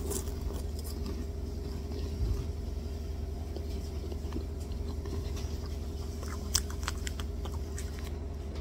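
A child chewing a mouthful of Choco Heim wafer cookie close to the microphone, with faint soft crunches and a few sharper clicks.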